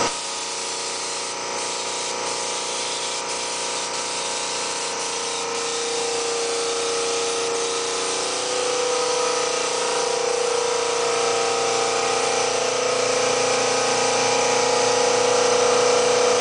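Paint sprayer running steadily: a continuous hiss of spray over a steady motor whine that shifts slightly in pitch about eight seconds in.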